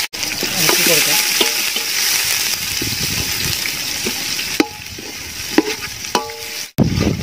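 Sliced onions sizzling in hot ghee in a large aluminium pot while a metal spoon stirs them. The sizzle drops down after about four and a half seconds, with a few sharp knocks of the spoon against the pot.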